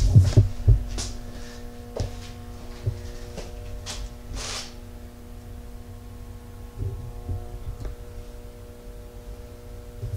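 Steady electrical hum, with a few low thumps and scattered clicks from a handheld camera being moved about, the thumps strongest in the first second.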